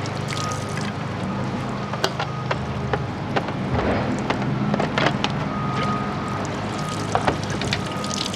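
Wind on the microphone, with a series of sharp plastic clicks and knocks from handling the Wonder Wash hand-cranked washer's drain tube and pressure lid as it is set up to drain after the rinse.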